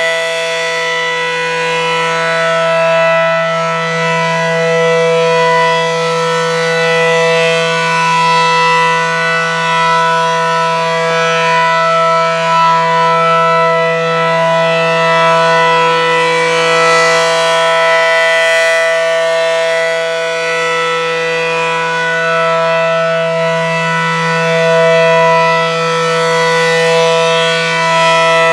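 ACA Allertor electronic outdoor warning siren sounding a steady alert: one low-pitched tone held at a constant pitch, rich in overtones, swelling and fading slightly as it sounds.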